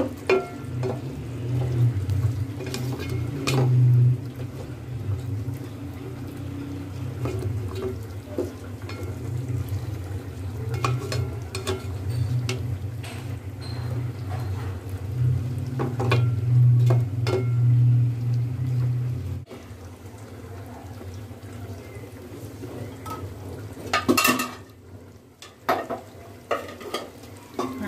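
A spatula stirring chicken and turnip chunks in a thick spiced gravy in an aluminium pot, scraping and knocking against the pot, while the masala fries. A low steady hum underneath cuts off about two-thirds of the way in.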